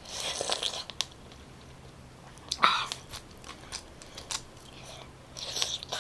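Close-miked mouth sounds of eating juicy fresh pineapple pieces: wet bites and chewing in three short bursts, at the start, near the middle and near the end, with small wet clicks between.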